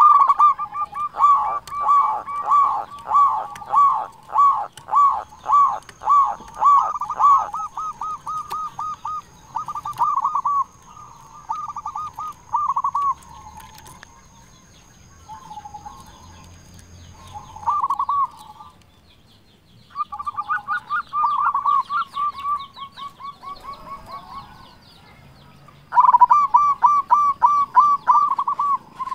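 Zebra dove (perkutut) cooing: repeated rapid, staccato coo phrases, loud at first, quieter with a short pause past the middle, then a loud fast run of coos near the end.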